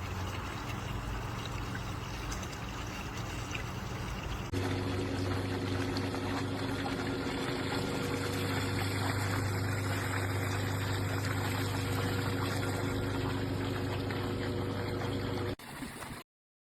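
Water pouring steadily from a pool waterfall fountain into the water, over the constant hum of the pool's filter pump. The sound jumps louder about four and a half seconds in and cuts off abruptly near the end.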